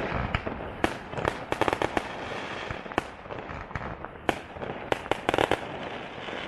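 Fireworks going off: a series of sharp bangs, with bursts of rapid crackling about a second and a half in and again about five seconds in.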